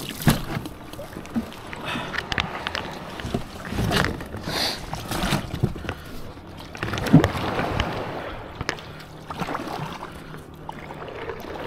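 A kayak on the water: irregular knocks and bumps over a steady wash of water and air noise.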